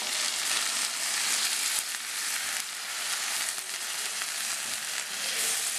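A pan of potato, carrot and bean curry sizzling steadily as thick coconut milk is poured in and stirred through with a spatula.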